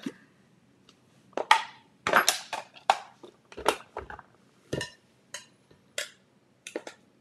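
A plastic food processor bowl knocking and clattering as it is lifted off its base and tipped, with a spoon scraping and tapping as ground salmon mixture is emptied into a large glass bowl. About a dozen sharp knocks and short scrapes, irregularly spaced.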